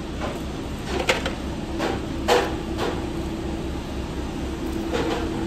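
Fast-food kitchen background: a steady low hum of kitchen equipment, with a handful of short clacks and knocks, the loudest about two seconds in.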